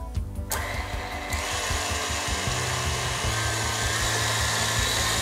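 KitchenAid stand mixer with its wire whisk switched on to beat cake batter: the motor and whisk start whirring about half a second in, speed up about a second later, and then run steadily.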